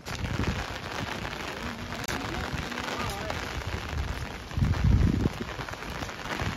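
Heavy rain falling in a steady, dense hiss. A louder low rumble comes about four and a half seconds in.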